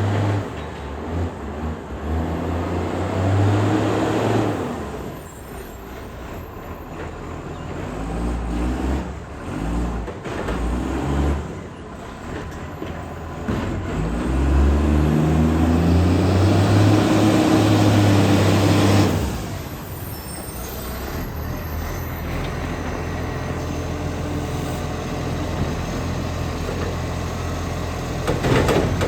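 International ACCO garbage truck's diesel engine revving hard twice with a leaking exhaust, dropping back between, then settling to a steady idle. A short sharp burst, like an air release, near the end.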